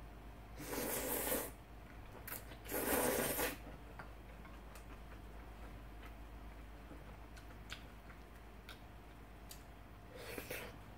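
Mouthful of udon noodles slurped in two long, noisy sucks within the first few seconds, then faint clicks of chewing and a shorter slurp near the end.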